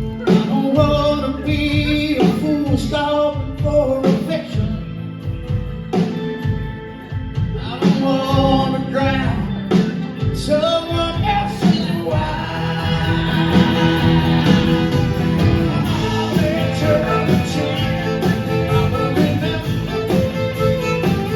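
Live rock band playing a song, with sung vocals over guitars, bass and drums.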